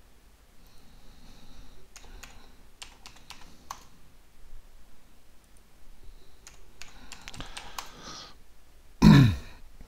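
Computer keyboard keystrokes and mouse clicks in two short bursts, as a password is typed at a Windows XP logon. Near the end comes a short, loud, low sound that falls in pitch.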